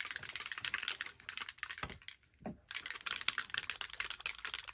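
A small Tim Holtz Mica spray bottle being shaken by hand, giving a fast, dense rattling clatter that pauses briefly about two seconds in and then resumes.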